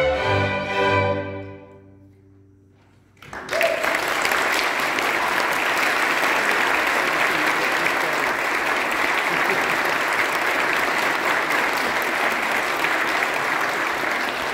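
A youth string orchestra's final chord, dying away about two seconds in; after a short silence the audience breaks into applause that goes on steadily.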